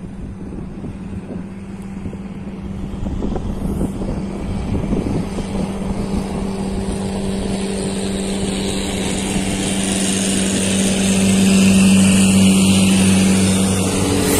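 The engine of a long wooden river speedboat running flat out, a steady hum growing louder as the boat approaches and loudest near the end as it passes close. Under it runs the rushing hiss of its wake and spray.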